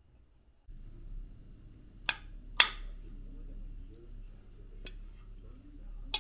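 Metal fork clinking against a ceramic plate while cutting and picking up food: four sharp clinks, the loudest about two and a half seconds in.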